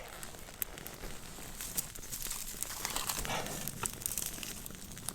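Freshly lit birch-bark and fatwood tinder burning: a steady crackle with many small sharp pops over a hiss.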